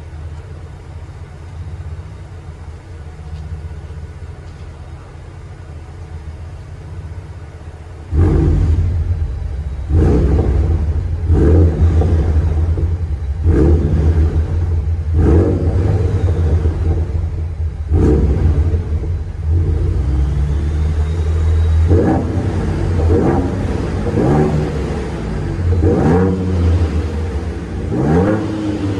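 2023 Ford Ranger Raptor's 3.0-litre twin-turbo V6 exhaust in Sport mode, idling steadily. About eight seconds in, the idle suddenly turns much louder, and then about ten sharp throttle blips follow, each revving up and falling back to idle. The sound is echoing in an enclosed parking garage.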